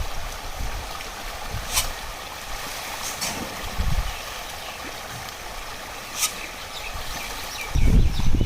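Outdoor ambience: a steady hiss with three short sharp clicks, and a heavy low rumble of wind buffeting the microphone starting just before the end.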